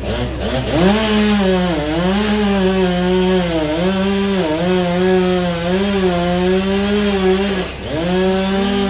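Chainsaw running at full throttle cutting wood, its engine note dipping briefly several times as the chain bites. It drops off for a moment near the end, then revs back up.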